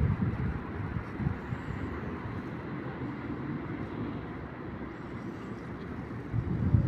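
Outdoor ambience by a lake: a steady low rumble with wind on the microphone, and a few stronger wind buffets near the end.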